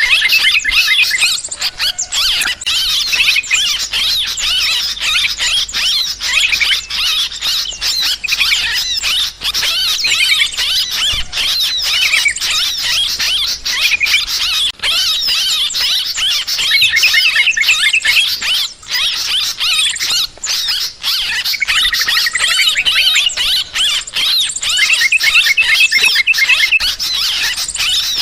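Yellow-vented bulbuls (trucukan) calling in a noisy, agitated chorus: dense, overlapping chattering calls without a break, the kind of commotion used as a lure to draw birds in.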